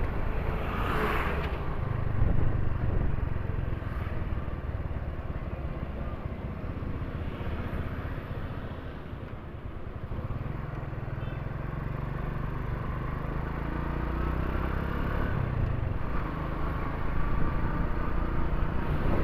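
Motorcycle engine running and road and wind noise while riding, a steady low rumble that eases off briefly about halfway through and then picks up again.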